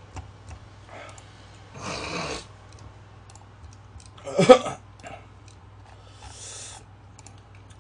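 Scattered computer mouse clicks over a low steady hum, with two short breathy rushes of noise and one loud, short throat sound about four and a half seconds in.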